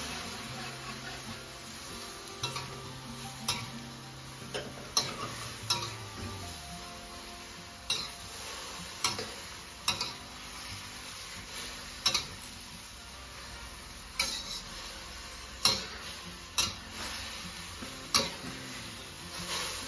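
Spatula stirring and tossing vegetables in a stainless steel wok, with sharp clanks against the pan at irregular intervals, roughly once a second, over a steady sizzle of cabbage and mushrooms frying.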